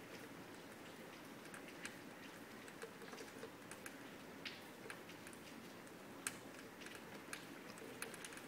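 Light rain falling outside a glass door: faint, irregular ticks of drops landing, a few each second, over a soft steady hiss.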